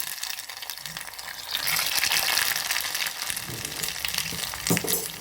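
Chicken burger patty frying in hot oil in a pan: a steady sizzle with a constant scatter of small crackles.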